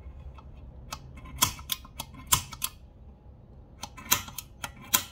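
Sharp metal clicks and taps of a center punch marking the drill points on a fender-mount bracket, coming in two quick clusters.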